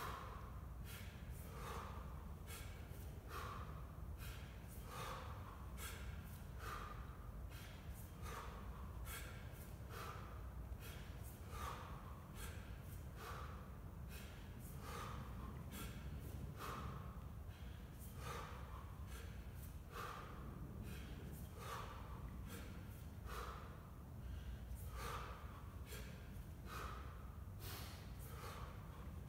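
A man breathing hard and forcefully while snatching a 24 kg kettlebell, a sharp breath about once a second in rhythm with the reps.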